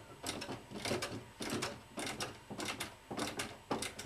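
A small folding table rocking under people's hands, its legs and joints knocking and clicking in an irregular run of sharp knocks, about two to three a second.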